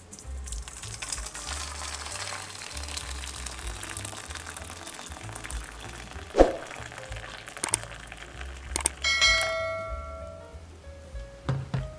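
Hot water pouring from a jug into a stainless steel bowl, a steady splashing that stops about six seconds in, over background music. A knock follows the pour, and a bell-like notification chime rings out briefly near the nine-second mark.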